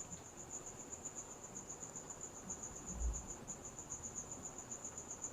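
Faint background cricket chirping, a high, steady trill pulsing rapidly and evenly, with a soft low thump about three seconds in.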